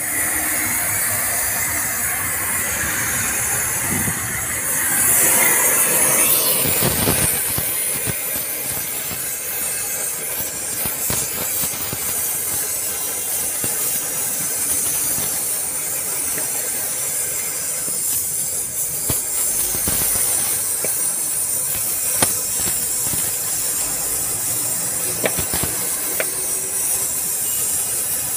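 Gas cutting torch hissing steadily as its flame cuts into the steel of a truck tipper-body mounting, with a stronger rush about five seconds in and a few sharp pops or clicks later on.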